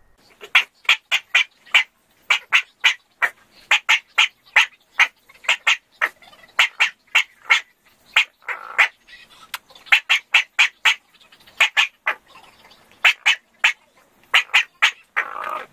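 Prague Ratter dog yapping in quick, high-pitched yips, about four a second in short runs, with a longer, rougher call about eight seconds in and another near the end.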